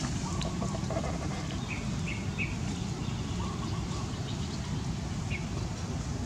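Outdoor ambience: a steady low rumble with a few short high chirps, three in quick succession about two seconds in and one more near the end.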